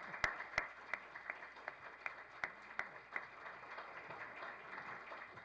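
Audience applauding, with a few louder single claps standing out over the first few seconds.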